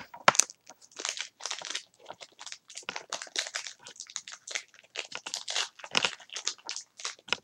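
Foil Pokémon TCG booster pack wrapper crinkling and rustling as it is handled and opened by hand, in many short irregular rustles, with one sharp crackle just after the start.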